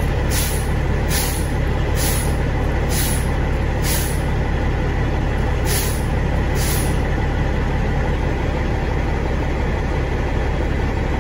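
Cat C15 diesel idling, heard from inside the truck cab, while the newly replaced air compressor builds air pressure. About seven short hisses come roughly a second apart during the first seven seconds, then only the steady idle goes on.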